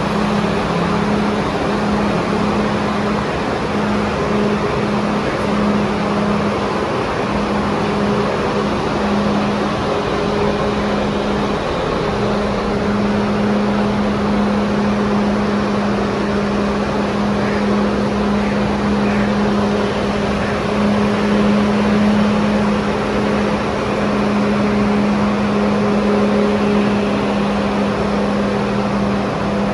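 New York City subway train noise: a loud, steady rumble with a constant low hum, holding level with no rise or fall in pitch.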